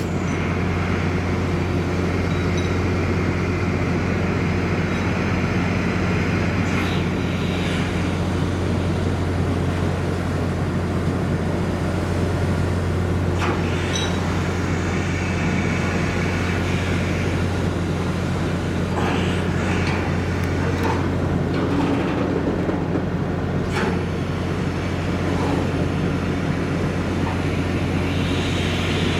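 Steady low drone of a cargo ship's machinery running while its Thomson cargo derrick is worked, with a few short metallic clanks and knocks scattered through.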